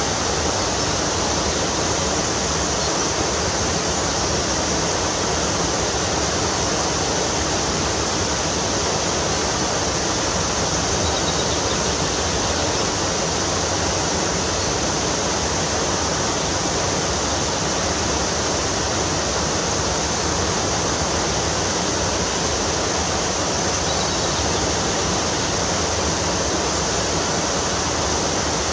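Steady rush of flowing river or stream water, an even noise that does not change.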